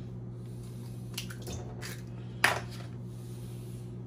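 Raw eggs cracked against the rim of a stainless steel mixing bowl: a few light taps from about a second in, then a sharper crack about two and a half seconds in, with egg slipping wetly into the bowl. A steady low hum runs underneath.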